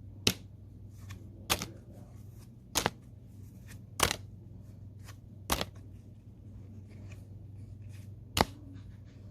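Pokémon trading cards being flipped through one at a time, each card giving a sharp snap against the stack: six snaps spaced one to three seconds apart, over a low steady hum.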